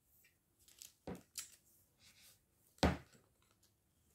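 White plastic tube pieces of a Q-Snap embroidery frame handled and pushed together: a few light plastic clicks and knocks, with a sharper knock nearly three seconds in.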